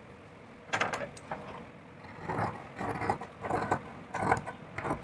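Large tailoring scissors cutting through layered cloth: a run of short, crisp snips of the blades, starting about a second in.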